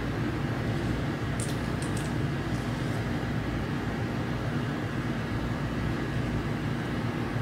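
Steady low background hum, like a fan or air conditioner running in the room, with a few faint small clicks about one and a half to two seconds in.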